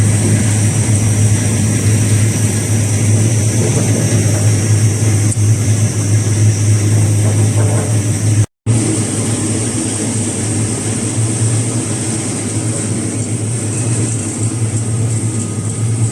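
Brush-type root-vegetable washing and peeling machine running steadily: a strong low motor hum under an even rushing noise. The sound breaks off for an instant about eight and a half seconds in, then carries on.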